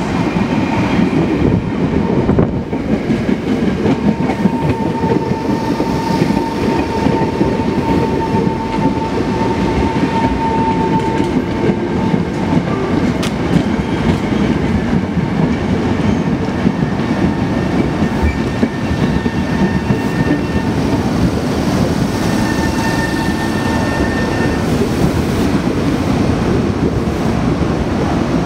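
An electric commuter train runs slowly past close by, its wheels clattering steadily over the rails. A thin steady whine sounds from about four seconds in to about eleven.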